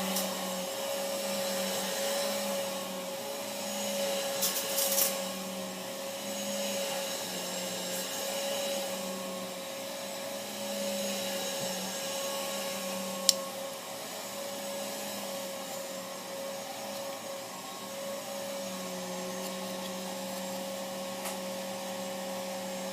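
A steady whirring hum with one constant tone, unbroken, and a single sharp click about thirteen seconds in.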